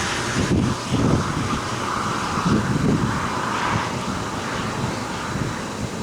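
Gusty wind buffeting the microphone, with uneven low rumbles over a steady rushing hiss.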